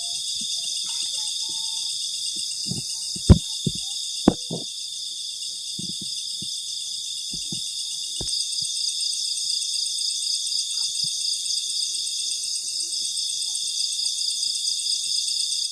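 Dense, steady night insect chorus, a high-pitched pulsing trill. A few sharp knocks or cracks stand out three to four seconds in, with fainter ones later.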